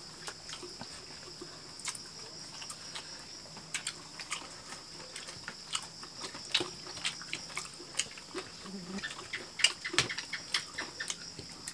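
Several people eating fried chicken and rice with their hands: wet chewing and lip-smacking clicks, irregular and more frequent in the second half, over a steady high-pitched hum.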